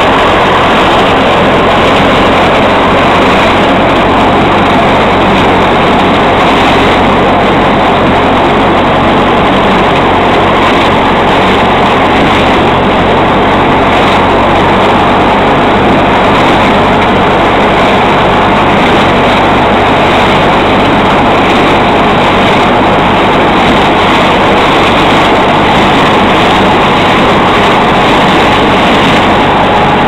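Massey Ferguson 178 tractor's four-cylinder diesel engine running steadily at working revs, together with the PTO-driven SIP Šempeter corn harvester it pulls, cutting and feeding corn stalks. The sound is loud and close and does not change.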